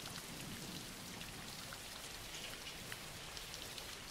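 Faint, steady rain, with scattered individual drops ticking through the even hiss.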